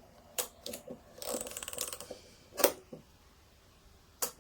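Pax Ruby rangefinder camera's film advance knob being wound on freshly loaded film: a stretch of fine ratcheting clicks, with a few sharp mechanical clicks, the loudest about two and a half seconds in.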